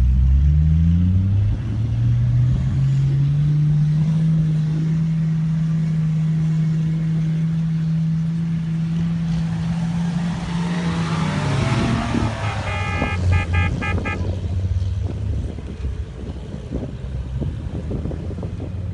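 Four-wheel-drive vehicle engine revving hard, its pitch climbing over the first second or so and then held high and steady for about ten seconds under load before dropping back. Just after it eases off, a car horn gives a quick run of short toots, then the engine runs on at lower revs.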